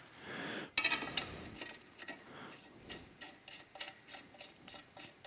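Small metallic clicks and light scraping as a transmission case is set onto its bench holding fixture and handled into place: a cluster of clicks about a second in, then a run of light, irregular ticks a few times a second.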